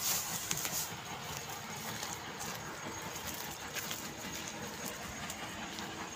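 A steady, distant machinery drone from a stone crusher working on the far side of the fields, with a few light clicks.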